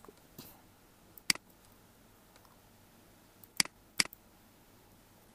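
Computer mouse button clicking three times: a single click about a second in, then two more close together a little past the middle.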